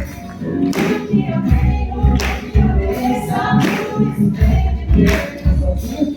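A group singing a song together to acoustic guitar, with hands clapping along in a steady rhythm.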